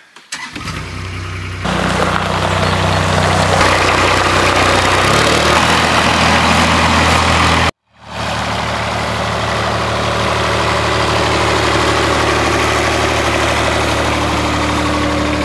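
Compact wheel loader's engine running, getting louder and busier about one and a half seconds in as the loader works. It breaks off for a moment near eight seconds, then runs steadily.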